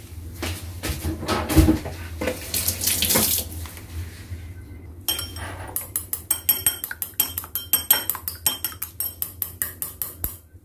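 Raw egg being beaten with a chopstick in a ceramic bowl: quick, rapid clicks of the stick against the bowl side over the second half. Before that come a few seconds of hissing noise.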